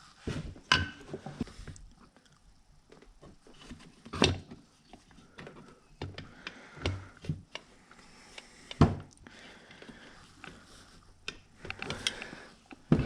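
Scattered metallic knocks and clicks as the Yamaha RD50's aluminium crankcase halves are worked apart, with two louder knocks about four and nine seconds in.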